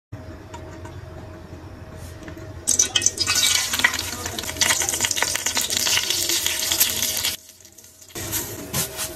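Dry vermicelli strands dropped by the handful into an empty metal pan: a dense patter of tiny ticks as the strands hit the metal, growing loud about three seconds in, breaking off briefly near the end, then resuming more lightly.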